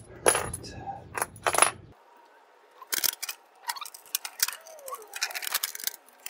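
Stainless exhaust pipes and bolt hardware clinking and scraping as they are handled: a quick run of sharp, ringing metal clinks in the first two seconds, then scattered lighter knocks and scrapes as the second pipe section is moved into place.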